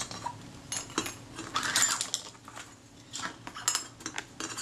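Small metal and plastic camera parts and tools being handled on a work mat: scattered light clicks and clinks, with a busier run of clicks and scraping about one and a half to two seconds in.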